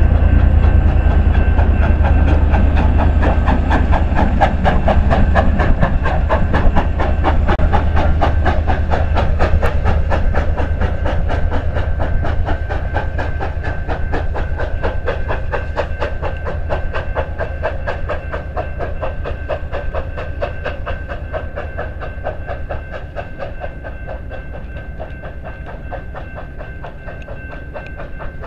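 Steam-hauled passenger train rolling past and away, its wheels clicking rapidly over the rail joints with a steady high whine above, the whole sound fading slowly.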